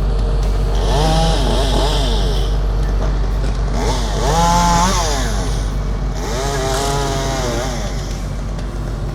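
Two-stroke chainsaw revving up and easing back off three times, as in cutting ash wood, over a steady low drone.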